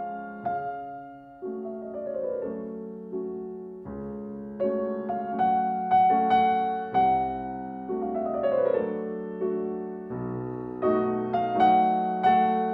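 Solo piano music: a slow melody of struck notes and chords, each dying away, with quick falling runs of notes twice.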